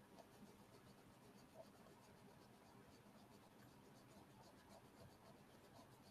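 Near silence: room tone with faint, scattered light scratches and rustles.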